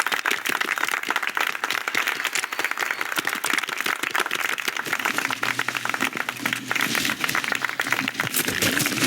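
Dense, rapid crackling and clicking, many small clicks a second packed into a continuous patter, with a low rumble joining about halfway through.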